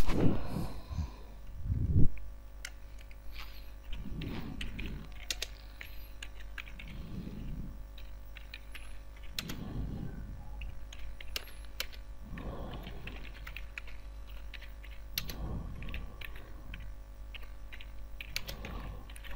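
Computer keyboard being typed on slowly, about two keys a second, as individual key clicks, over a steady low mains hum. A soft low sound comes every few seconds, loudest about two seconds in.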